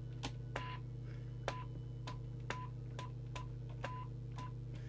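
Electronic test-bench sounds as a CB radio's test signal is stepped up with its squelch set to full: a run of about a dozen sharp clicks, two to three a second, several followed by a short high beep, over a steady low mains-type hum.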